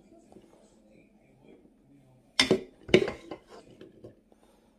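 Wooden spoon scooping cooked soybeans out of a rice cooker's inner pot: soft scraping, then two sharp knocks about half a second apart midway through, followed by a few lighter clicks.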